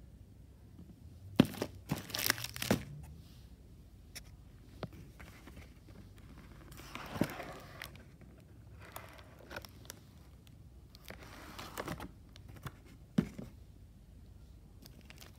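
Snack packaging being handled: crinkling and tearing of wrappers and of a cardboard dessert carton being opened, in irregular short bursts with a longer rustle partway through.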